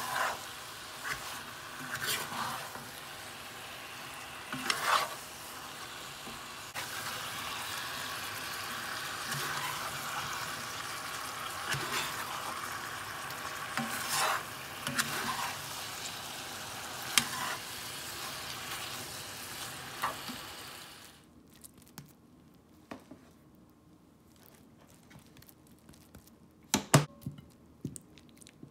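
Beef and broccoli in sauce sizzling in a cast iron pot while a metal spatula stirs and scrapes against the pot, knocking every second or two. The sizzling stops abruptly about three quarters of the way through. Near the end come a few sharp clinks of a slotted metal spoon against a plate.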